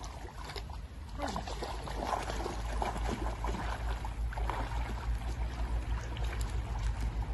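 Dogs splashing as they wade and swim through a shallow river, with irregular water splashes over a steady low rumble.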